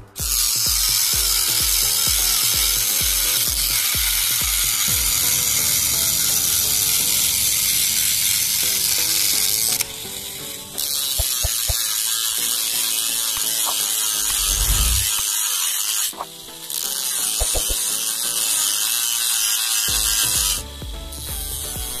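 Homemade angle grinder built from a 775 DC motor, its abrasive cut-off wheel spinning at speed and grinding through sheet metal and steel with a loud, high-pitched hiss. The cutting stops briefly about ten seconds in, again at about sixteen seconds, and once more near the end.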